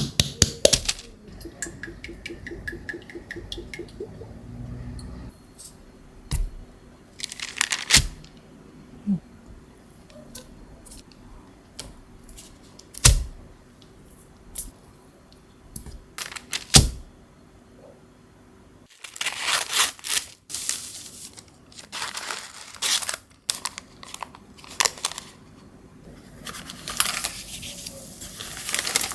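Kitchen handling sounds: scattered sharp knocks and clicks, then from about two-thirds of the way through, bursts of rustling, crinkling and scraping.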